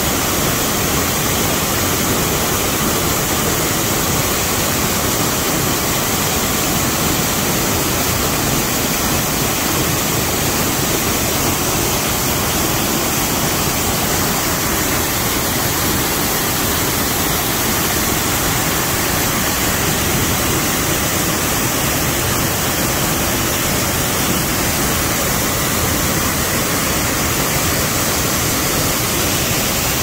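Waterfall crashing onto rock, a loud, steady rush of falling water.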